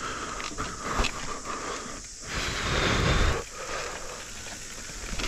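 Mountain bike being ridden down a dirt trail: tyre noise and wind on the action camera's microphone rise and fall in surges, with scattered clicks and rattles from the bike over bumps.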